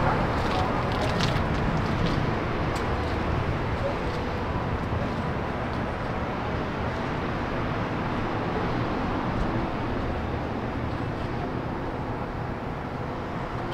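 A car on the move: steady engine and road noise, fading a little toward the end.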